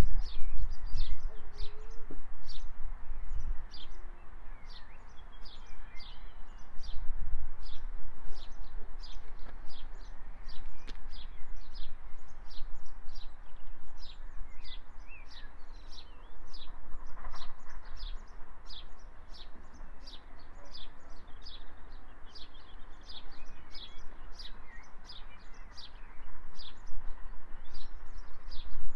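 A small songbird repeating a short, high chirp about twice a second, over an uneven low rumble of wind on the microphone and a steady background hum of outdoor ambience.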